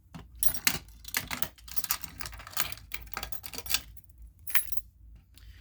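A fire alarm pull station being handled, its parts clicking and rattling in a quick, irregular run that stops near the end.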